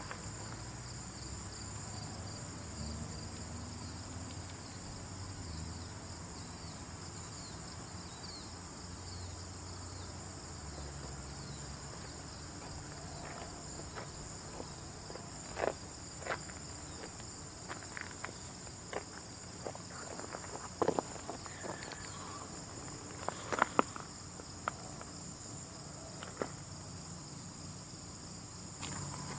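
Steady chorus of chirring insects, with a higher hiss that comes and goes every few seconds over a low rumble. From about halfway through, scattered small clicks and crackles join in, the loudest in a quick cluster near the end.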